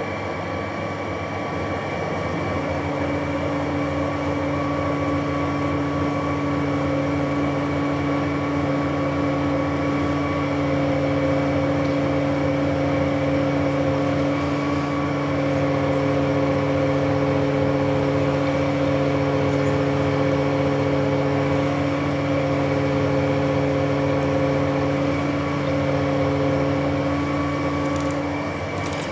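Metal lathe running while a large drill in the tailstock bores out a metal workpiece under flood coolant, giving a steady machine hum with several fixed tones. A stronger tone joins about two seconds in and drops away near the end.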